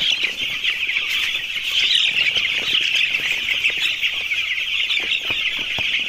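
A large flock of eight-day-old broiler chicks peeping nonstop, hundreds of high chirps overlapping into one dense, continuous chorus.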